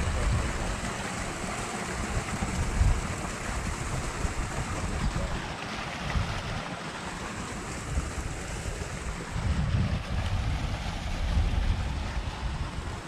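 Wind buffeting the microphone in irregular low gusts over a steady rushing hiss.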